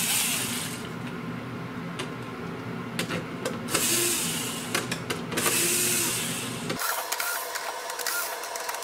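Cordless electric screwdriver whirring in three short bursts as it backs out the screws of a freezer door's gasket retaining strip.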